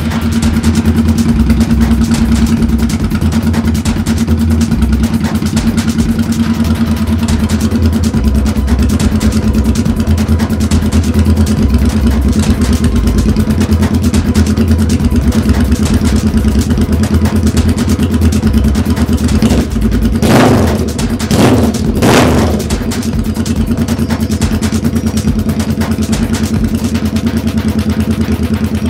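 2009 Suzuki Boulevard C50's V-twin engine idling steadily, with three quick revs of the throttle about two-thirds of the way through.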